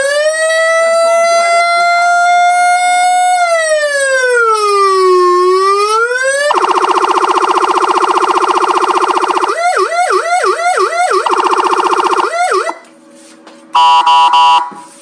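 Electronic car siren through a horn loudspeaker cycling through its tones: a slow rising and falling wail, then a harsh steady horn tone, a run of fast yelping sweeps, and a sudden stop, with a short pulsed beep near the end.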